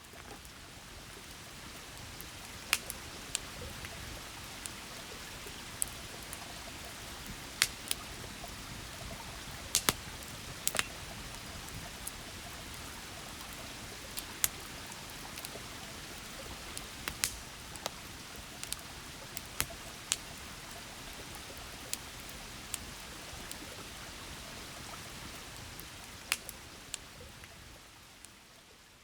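Steady rain with irregular sharp taps of single drops. It fades in over the first few seconds and fades out near the end.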